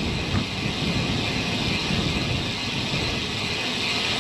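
Steady rushing wind noise on an action camera's microphone while riding a road bicycle, a continuous low rumble with a hiss on top.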